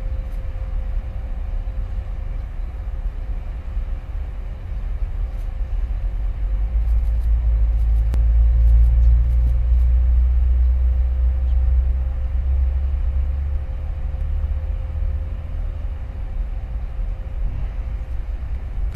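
Deep, steady low rumble of a large container ship passing close at slow harbour speed, swelling about a third of the way in and easing off again. A faint steady hum sits above it.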